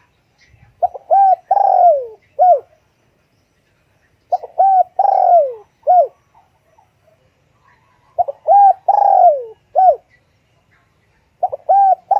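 Spotted dove cooing: four repeated phrases, each made of a couple of short coos, a longer falling note and a short closing coo, coming about every three and a half seconds.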